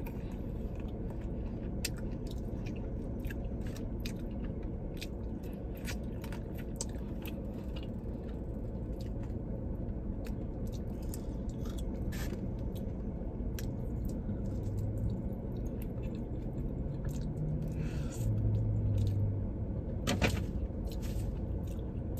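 Close-up chewing and lip-smacking of someone eating chicken wings, stripping the meat off the bone, with many small wet clicks over a steady low hum. A short louder noise comes about two seconds before the end.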